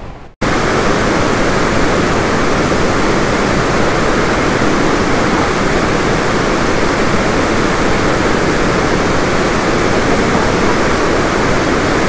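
Steady roar of Chitrakote Falls, a wide river waterfall in heavy muddy flow, cutting in suddenly about half a second in and holding even throughout.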